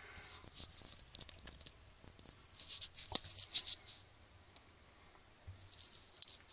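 Light scratching and rustling close to the microphone, in three short spells: near the start, around the middle, and near the end.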